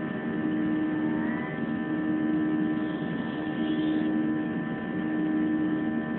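Cabin noise of a Boeing 737 airliner in flight: the jet engines and airflow make a steady drone with a hum of several steady tones.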